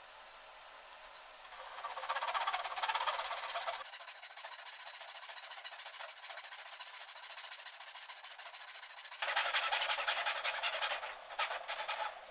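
Hand saw cutting a dovetail in wood, in stroke-by-stroke rasping. It comes in two louder runs, one about two seconds in and one from about nine seconds in, with lighter sawing between.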